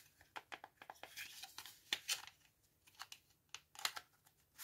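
Hands handling a small plastic remote control: a run of faint irregular clicks and light rustles.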